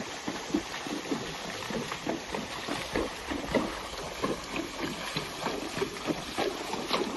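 A horse's hooves splashing through shallow creek water at a brisk gait, a steady rhythm of splashes several times a second.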